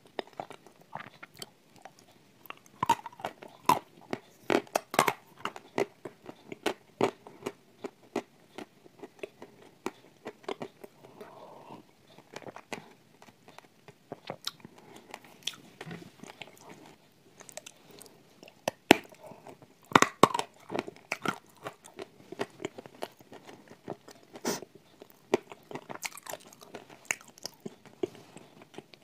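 Close-up crunching and chewing of hard, crumbly Turkistan-tile edible clay in the mouth: a steady run of irregular sharp crunches, with the loudest bites a few seconds in and again about two-thirds through.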